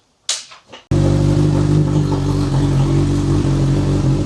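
Honda CB1000R inline-four engine idling steadily through a Racefit aftermarket exhaust that has little muffler and runs almost straight through. It comes in abruptly about a second in and is pretty loud.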